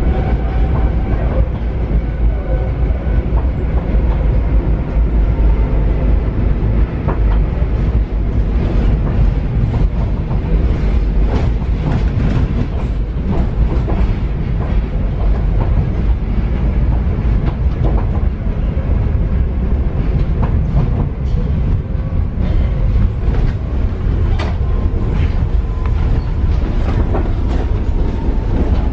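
Steel-wheeled Paris Metro Line 7bis train running, a steady heavy rumble with repeated clicks of the wheels over rail joints. A faint motor whine fades in the first couple of seconds, and another comes in near the end.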